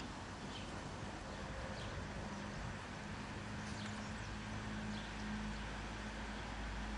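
Outdoor ambience: a steady low hum under a noisy background, with a few faint bird chirps. A low rumble comes in about four seconds in.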